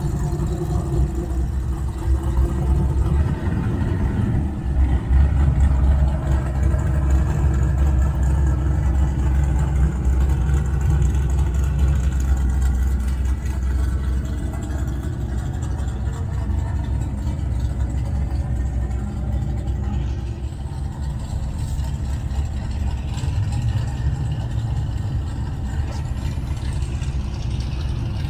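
Classic muscle car engines running at low revs as the cars roll slowly past, one after another: a deep, steady exhaust sound that swells as each car goes by.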